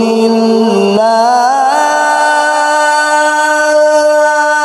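A qari's solo male voice, amplified through a microphone, chanting in the ornamented Arabic recitation style: a held note, a wavering rise about a second in, then a long higher note sustained for several seconds.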